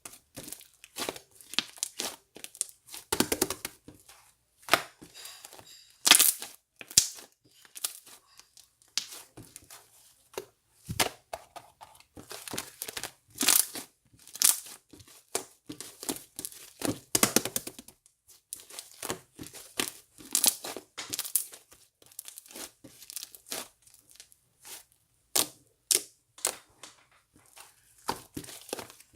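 Crinkling and tearing sounds in quick, irregular short bursts, as of a crinkly material being crumpled and pulled apart by hand.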